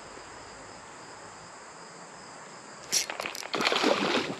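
Steady, even chirring of crickets or other insects over a quiet creek background. About three seconds in, sudden loud splashing breaks in as a hooked rainbow trout thrashes at the water's surface.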